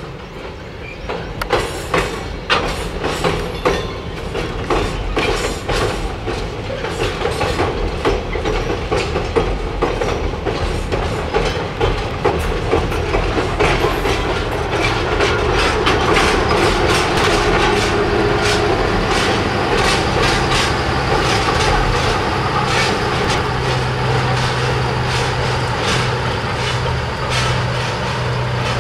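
Passenger coaches rolling across a steel girder bridge, wheels clicking rapidly over the rail joints and growing louder. In the second half the steady low drone of the 1939 Davenport diesel-mechanical locomotive's Caterpillar 3406 diesel engine comes up as it draws level.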